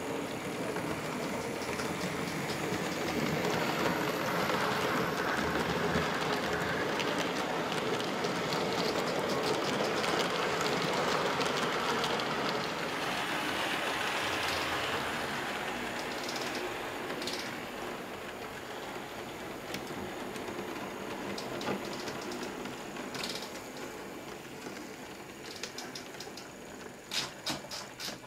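Model trains running on a layout: a steady rolling rattle of small wheels on track, loudest as a train passes close by and then fading. A run of sharp clicks comes near the end.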